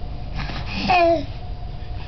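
A baby's short cooing vocalisation about a second in, one pitched sound that dips slightly at the end.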